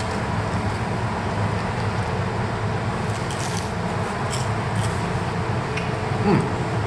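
Crunching of a crispy fried spring roll as it is bitten and chewed, with a few sharp crackles around the middle, over a steady room hum.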